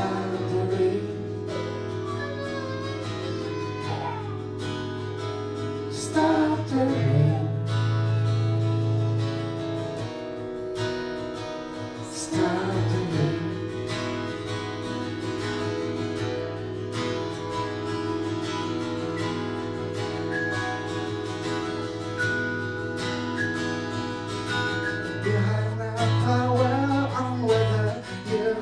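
Live band music: strummed acoustic guitar over held keyboard chords, with singing coming in near the end.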